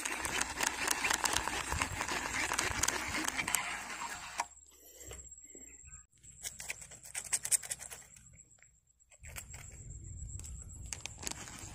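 Rustling and scratching handling noise close to the phone's microphone, with many clicks. It stops about four seconds in, leaving scattered clicks, a short near-silent gap and then a faint low rumble.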